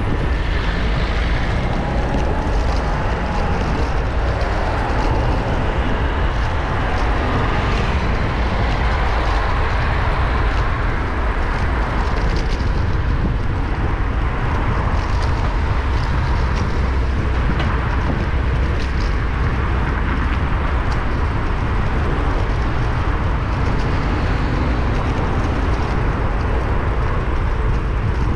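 Road traffic heard from a bicycle-mounted GoPro Hero8 while riding along a city street: a steady low rumble with the noise of passing vehicles and a few faint rising and falling engine tones.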